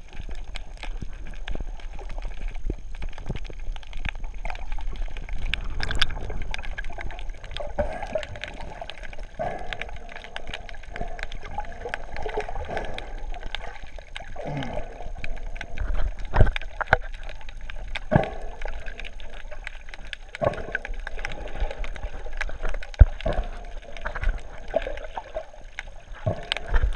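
Underwater gurgling and bubbling heard through a GoPro's waterproof housing, with scattered clicks and knocks throughout.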